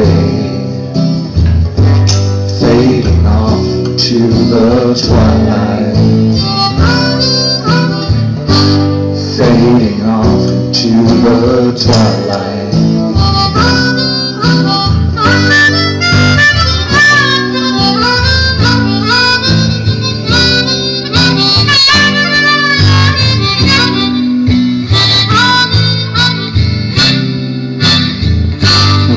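Harmonica solo over acoustic guitar accompaniment in an instrumental break. The harmonica's bending melody gets busier and higher from about six seconds in.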